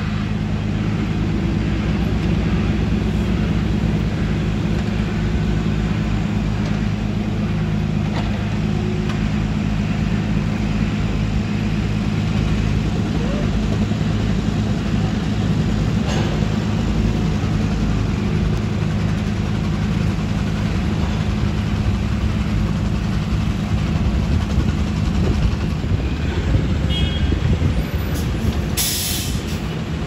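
Diesel engines of a Cat mini excavator and a dump truck running steadily with a low drone. A short hiss of air comes near the end.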